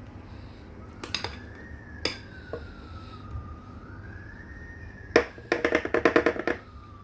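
A metal spoon clinking against a dessert glass twice, then a quick rattle of rapid taps about five seconds in as cream is spooned and knocked off into the glass. A faint siren rises and falls in the background.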